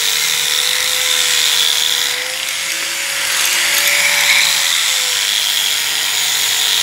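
Handheld angle grinder with a buffing pad running steadily against a rosewood board, a motor whine over a high hiss. About two seconds in its pitch rises a little and it grows slightly quieter, then it settles back to its earlier note.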